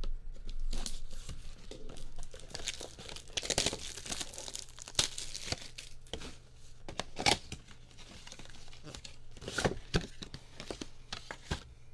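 Plastic wrapping being torn open and crinkled as a box of trading cards and its packs are unwrapped, with irregular crackling tears and a few sharper rips.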